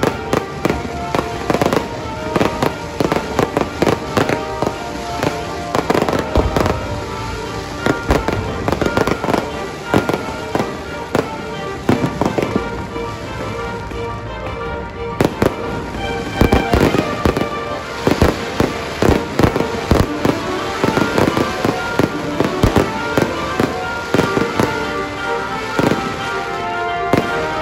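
Fireworks display: many sharp bangs and crackling bursts in quick succession, coming thickest in the second half, over music with sustained notes.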